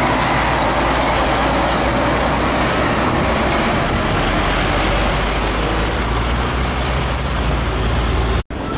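Heavy diesel truck towing a trailer drives past, a steady rumble of engine and tyres on the road. A thin high whine joins in about five seconds in. The sound cuts out for an instant near the end.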